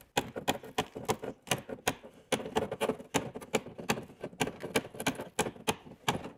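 Hand cutters snipping off the little tabs left by a staple repair on a plastic snowmobile hood: a quick, irregular run of sharp clicks, a few a second.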